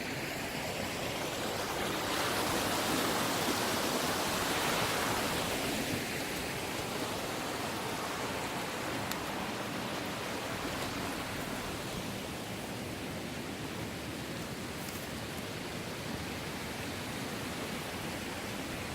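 Mountain stream rushing, a steady hiss of running water that swells a little louder for a few seconds near the start.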